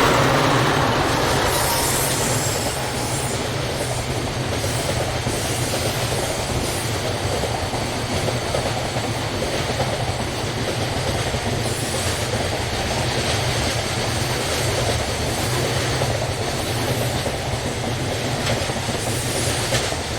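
Long freight train running past close by, its wagons rolling steadily over the rails with the clickety-clack of wheels over rail joints. Loudest at the start, easing a little over the first couple of seconds, then holding steady.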